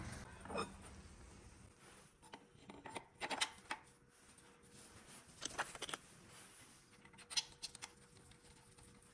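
Light metal-on-metal clicks and clinks in four short clusters as a steel camshaft alignment tool is fitted onto the camshafts of a BMW N46 four-cylinder engine.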